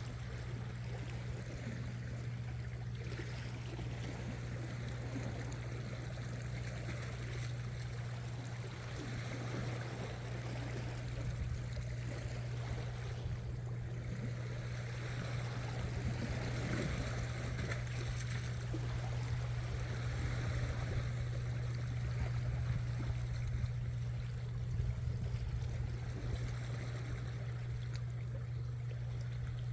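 Sea water washing and trickling against shore rocks, over a steady low hum.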